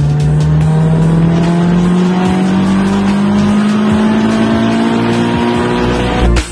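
Mazdaspeed6's turbocharged 2.3-litre four-cylinder engine accelerating hard in one gear, heard from inside the cabin, its pitch rising steadily as the revs climb. The engine note cuts off suddenly near the end, as at a gear change or lift-off.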